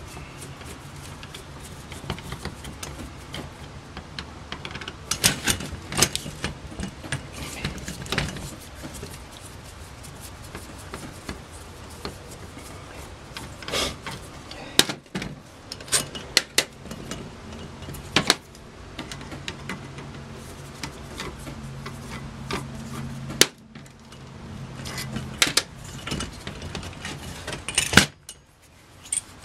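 Screwdriver work and small metal carburetor parts clicking and clinking as a valve assembly is unscrewed from an Aisan two-barrel carburetor's top: scattered sharp ticks and knocks, with a low steady hum underneath.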